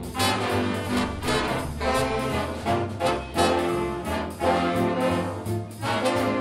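A jazz big band playing, with the brass section of trombones and trumpets and the saxophones sounding a run of sharp, punched chords over upright bass and rhythm section.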